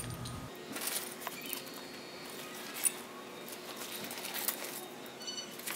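Light clicks of small metal mounting bolts being taken out of a cloth hardware bag and set down, with faint rustling of the bag's fabric. The sharpest click comes about three seconds in.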